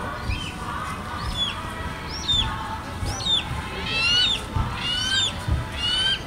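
A bird calling over and over in short, hooked chirps, about eight in a row, one roughly every 0.7 s. Faint background music runs underneath.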